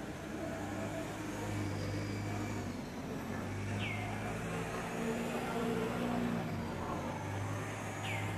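Motor vehicle engine running, a steady low hum whose tones shift a little. A short falling high-pitched chirp sounds about halfway through and again near the end.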